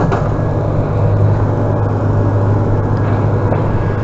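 Steady low drone of a vehicle engine running.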